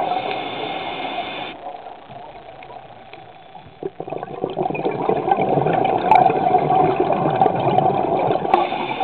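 Scuba diver breathing through a regulator, heard underwater: a hissing inhale at the start and again near the end, and a rushing, gurgling stream of exhaled bubbles that fades about two seconds in and swells again from about four seconds.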